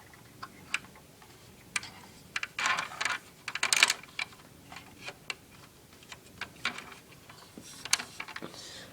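Toy Batmobile being handled: scattered small clicks and taps of its parts, with two short scrapes a little before the middle.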